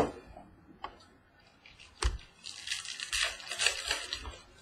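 A knock about two seconds in, then about two seconds of dense crinkling of plastic wrapping as a trading-card box is handled and opened by hand.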